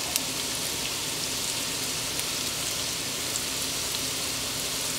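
Shredded chicken, jalapeños and onions frying in hot vegetable oil in a pan: a steady sizzle with a few faint crackles.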